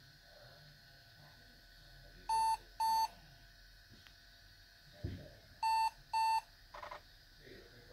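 Compaq Contura 410C laptop's built-in speaker giving two pairs of short, high, steady beeps, the first pair about two seconds in and the second about three seconds later: POST error beeps accompanying a CMOS checksum invalid error at startup. A dull thump comes just before the second pair.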